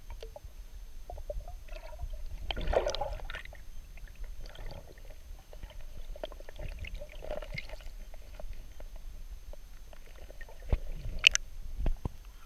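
Muffled underwater sloshing and gurgling of water moving around a camera held just below the surface, with scattered small clicks. It gets louder and sharper near the end as the camera comes up to the surface.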